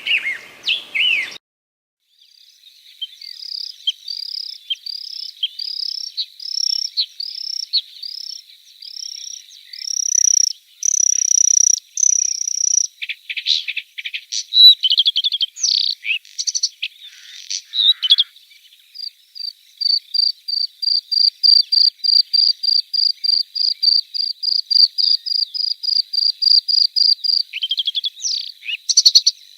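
Songbird singing: phrases of short, clear, high notes repeated about twice a second, growing louder and more varied midway. In the second half comes a long run of quick repeated notes, about four a second, over a faint steady thin high tone.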